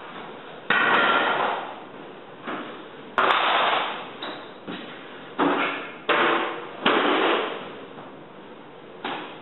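Hardwood flooring boards being laid out on the subfloor: a series of about nine sharp wooden knocks and clatters as boards are dropped and set into place, each dying away quickly.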